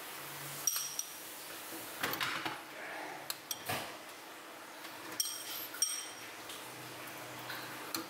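Metal spoon clinking and scraping against a ceramic bowl and snail shells as scallion oil is spooned out, with several short, sharp clinks, a few of them ringing briefly.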